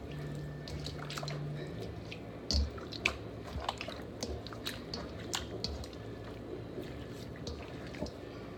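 Small spice jars handled and shaken over a stainless steel mixing bowl: a string of irregular light clicks and taps, the sharpest about two and a half to three seconds in.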